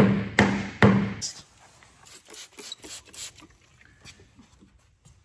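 Three quick hammer blows on a tractor's steel wheel rim in the first second, each ringing briefly. The blows are straightening a bend in the rim flange that has been letting the tire leak air at the bead. Only faint small sounds follow.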